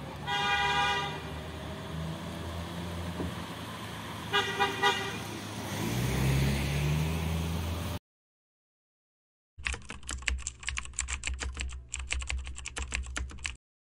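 Road traffic with a car horn honking, once about a second in and again as a few quick toots about four seconds in, and an engine rising in pitch just after. After a sudden cut to silence, a rapid run of keyboard-typing clicks lasts about four seconds.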